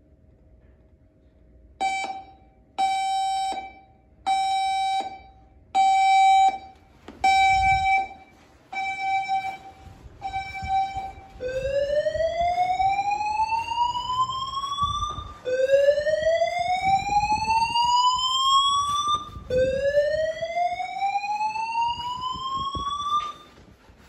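Voice-evacuation fire alarm speaker of a Notifier NFS2-640 system in alarm. After a short quiet start it gives seven steady beeps, about one every second and a half. Then come three rising slow-whoop sweeps of about four seconds each, the full-evacuation signal.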